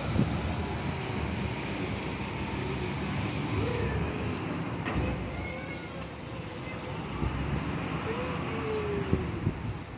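Steady outdoor city noise heard from a rooftop: a hum of distant traffic with low wind rumble on the microphone and faint voices now and then. Two sharp knocks stand out near the end.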